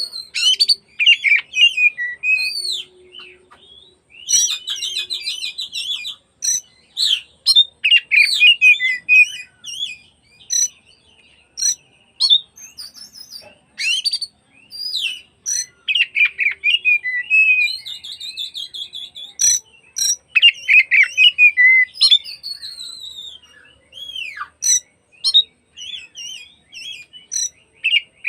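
Oriental magpie-robin (kacer) singing: a varied run of clear whistles, sharp short notes and buzzy trills, in phrases broken by brief pauses.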